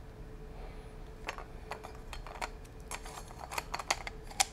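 Scattered light clicks and taps of hard plastic and metal flash accessories being handled and taken apart, with a few sharper clicks near the end, over a faint steady hum.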